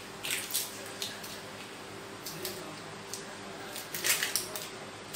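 Dry, papery onion skin crackling as it is peeled off by hand, in short irregular bursts that are loudest about four seconds in.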